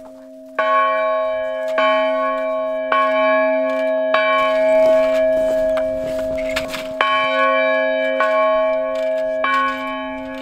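Music: bell tones struck about once every second and a quarter over a steady held chord, with a short pause in the strikes near the middle.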